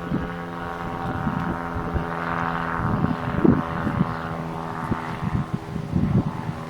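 A steady motor hum made of several even tones, with a rushing noise that swells in the middle and fades, and irregular low thumps.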